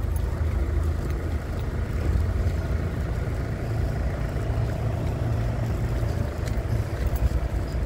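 Steady, uneven low rumble of wind buffeting the microphone, with a faint steady hum underneath.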